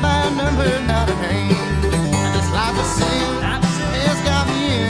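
Instrumental break in a bluegrass-style country song: plucked strings over a steady, even bass beat.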